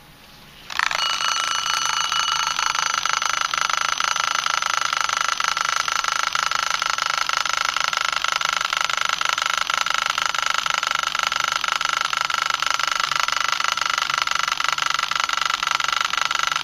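Bucherer travel alarm clock's alarm ringing: a rapid, steady buzzing ring that starts about a second in and keeps going without a break.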